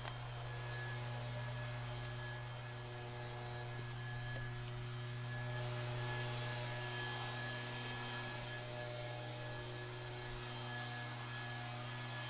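A steady low hum with several fainter sustained tones above it, some fading in and out slowly.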